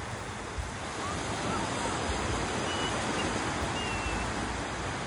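Gentle surf washing up a shallow sandy beach, a steady hiss of water, with wind buffeting the microphone in low rumbles.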